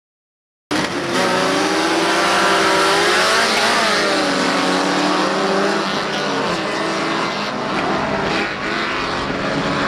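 Silence, then, under a second in, the sound cuts in on a pack of bilcross race cars running flat out together. Several engine notes overlap, each rising and falling as the cars accelerate and lift.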